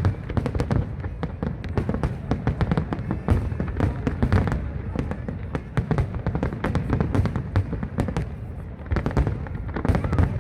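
Fireworks display going off: a rapid, continuous run of bangs and crackling pops, easing for a moment about three-quarters of the way through before picking up again.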